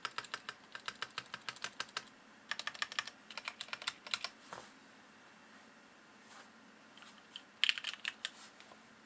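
Typing on a Nibble 65 mechanical keyboard with Gateron Ink Yellow linear switches and DSA keycaps: quick runs of keystrokes with short pauses, a few scattered single presses, and a louder cluster of strokes near the end.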